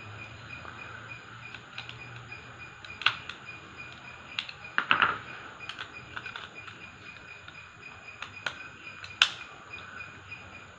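Sharp metallic clicks and clinks from an automatic transmission clutch drum assembly and hand tools (snap-ring pliers, screwdriver) being handled: a handful of separate clicks, with a quick cluster of the loudest about five seconds in and a single sharp click a little past nine seconds.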